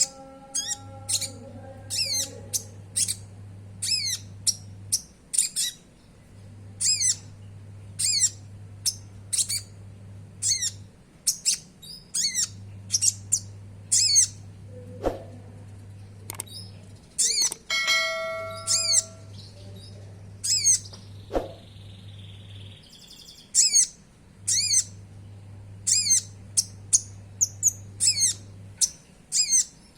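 Sunbird (konin) calling over and over: sharp, high chirps, one or two a second, each sweeping down in pitch. A short rattling trill breaks in a little past halfway.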